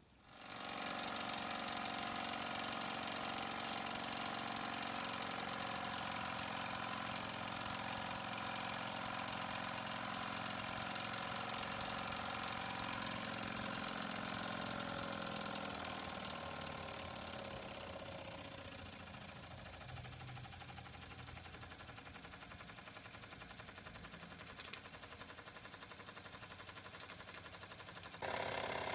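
Wilesco D222 electrically heated twin-cylinder toy steam engine running fast with a rapid, steady beat. A little past halfway, as its control lever is worked, the pitch slides down and it settles into a slower, quieter run.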